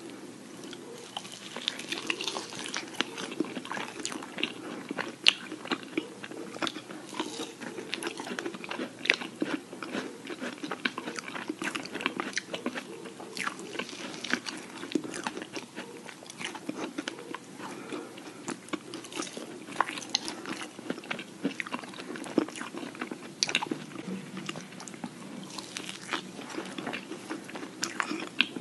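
Close-miked biting and chewing of large ice-cream-filled macarons by two people: many irregular crisp crunches as the macaron shells break, over steady soft chewing.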